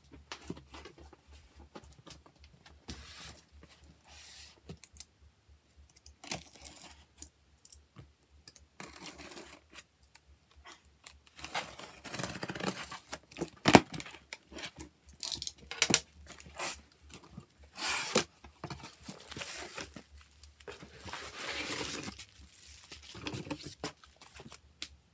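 Packing tape being torn off a cardboard shipping box, with cardboard scraping and rustling as the box is handled. The tearing strokes come sparsely at first, then louder and more often through the middle and latter part, with one sharp click about halfway.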